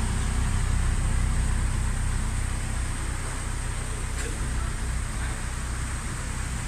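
Honda VTEC car engine running with a steady low drone under even road and cabin noise, kept quiet by its newly fitted custom exhaust with a middle silencer box.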